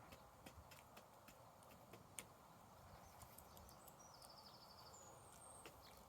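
Faint, irregular sharp ticks of birds pecking at scattered feed, with a brief rapid high trill from a small bird about four seconds in and a short thin whistle shortly after.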